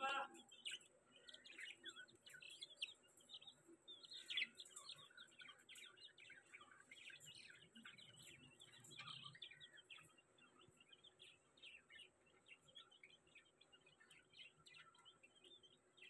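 Caged budgerigars and chicks chirping and peeping: a faint, dense stream of short, high chirps that thins out over the second half.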